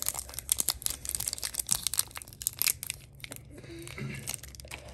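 Foil booster-pack wrapper being torn open by hand: a run of crinkling, crackling tears, busiest in the first three seconds or so and thinning out near the end.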